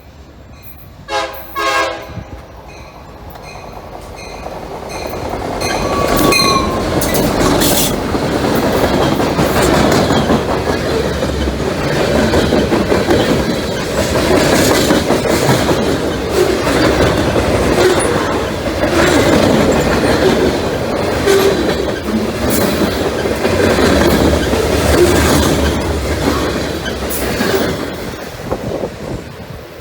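CSX freight train led by an EMD GP38-2 locomotive. Its horn sounds briefly about a second in, then the train comes up and passes fast, with loud wheel rumble and clickety-clack over the rail joints that fades near the end.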